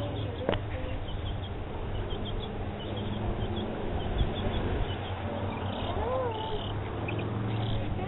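Backyard chickens and small birds calling: many short high chirps, with a rising-and-falling call about six seconds in, over a steady low hum.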